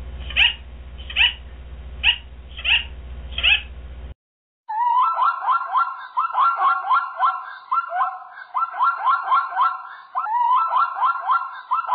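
An amazon parrot gives five short squawks, about one every three-quarters of a second, over a low hum. After a short break, a zebra barks in rapid runs of yelping notes, several a second, in repeated bursts.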